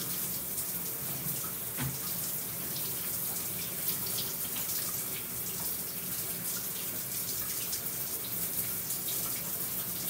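Shower spray running steadily, water splashing onto a person and the tiled wall of the stall.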